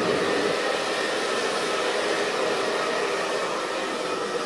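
Handheld hair dryer running steadily: a constant rush of air with a held motor tone, blowing on a wet cat's fur to dry it after a bath.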